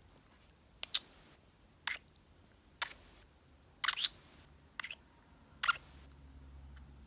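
Close-mic'd ASMR kissing and mouth sounds: short lip smacks and kisses, about one a second, each sharp and brief.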